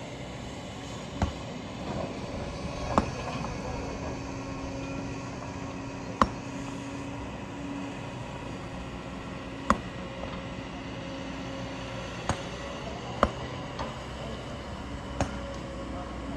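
Kobelco excavator running steadily as it digs into a rocky hillside, with about seven sharp knocks of the bucket and stones striking rock, a few seconds apart.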